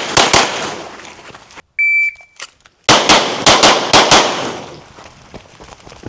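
Handgun shots on a range, with echo. The last shots of one string ring out at the start, then a shot timer beeps about two seconds in. About a second later comes a fast string of about six pistol shots, fired in pairs.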